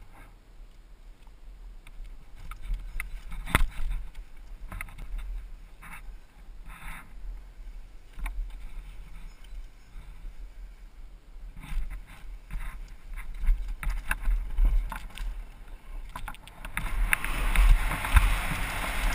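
Downhill mountain bike rattling and clattering over a rough dirt trail, with sharp knocks from bumps and a low buffeting wind rumble on the microphone. Near the end the wind rush grows much louder as speed builds.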